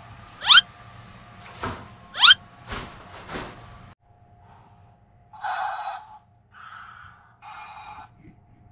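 Two quick rising whistle-like sweeps with a few sharp knocks, then a dancing cactus toy's small speaker sounding in three short, tinny bursts.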